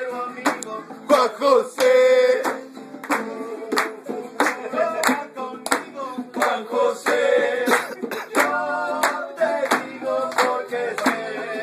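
Acoustic guitar strummed in rhythm with hand-played bongos, and a man singing along.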